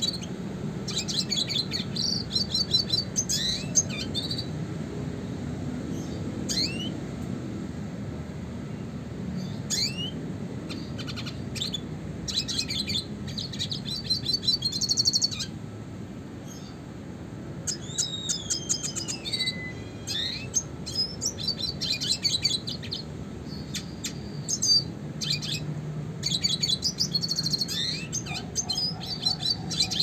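Male red siskin singing in bursts of fast twittering trills and chirps, with one long whistle that falls in pitch a little past the middle. A low steady rumble runs underneath.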